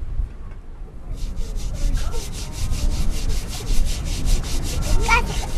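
Metal cooking pot being scoured by hand: a fast, even run of rasping scrubbing strokes, about six or seven a second, starting about a second in.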